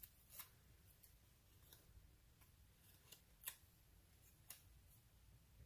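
Near silence with a few faint, sharp paper ticks and light rustling as small paper stickers are handled and pressed down onto a planner page by fingertips. The clearest tick comes about three and a half seconds in.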